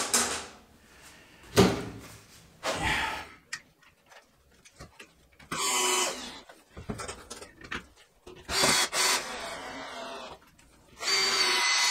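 Cordless drill-driver driving screws in three short runs of under a second each, its motor whining steadily for each, in the second half; a knock and some handling noise come before.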